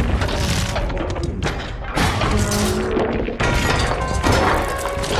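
Action-film sound mix: a music score under repeated heavy crashes and booms of shattering stone and metal as a giant robot and the top of a pyramid are blasted apart.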